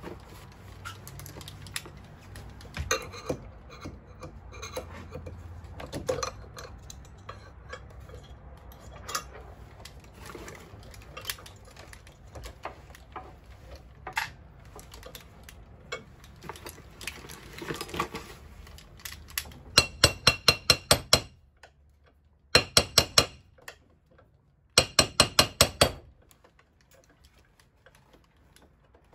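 Metal clicks and knocks as the metal anchor pressure plate is handled against a wooden roof rafter. Then, about two-thirds in, a hammer taps a small nail into the rafter to hold the plate, in three quick runs of sharp strikes about a second each.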